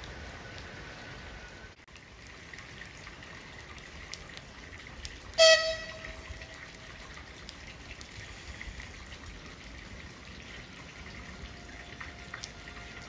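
A Skoda 16Ev electric multiple unit sounds one short horn blast about five seconds in, over the steady hiss of rain. Near the end a faint, slowly rising electric whine begins as the train starts to pull away.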